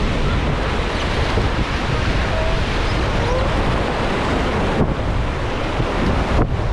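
Rushing whitewater of the Ganges, a steady loud roar of the river with wind buffeting the microphone.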